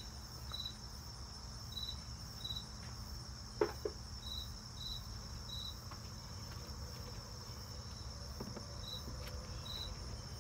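Insect chirping: short high chirps, often in pairs about half a second apart, at irregular intervals, over a steady low hum. A single sharp knock sounds about three and a half seconds in.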